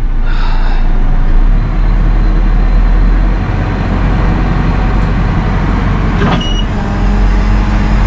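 JCB 3CX backhoe loader's four-cylinder diesel engine running steadily, heard from inside the cab. A sharp click with a short beep comes about six seconds in, and a steadier hum joins near the end.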